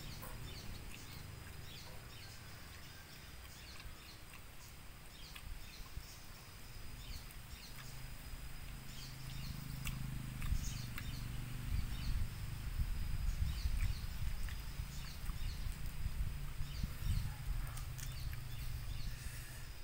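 Outdoor ambience with birds chirping and a steady high insect whine, joined from about eight seconds in by a low hum that grows louder, then eases off near the end.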